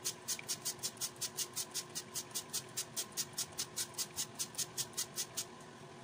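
A shaker shaken rapidly over a metal baking tray, scattering a white seasoning: a fast, even run of short rattling hisses, about five or six a second, that stops shortly before the end.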